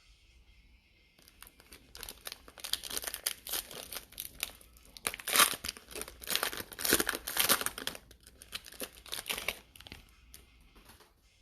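Foil trading-card pack wrapper crinkling and tearing as it is torn open, a rapid irregular run of crackles from about a second in until near the end, loudest in the middle.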